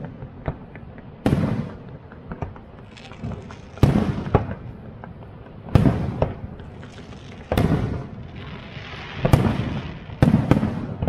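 Aerial fireworks bursting in a steady series of about six loud booms, one every one to two seconds, with sharper pops between them and a short stretch of hiss about nine seconds in.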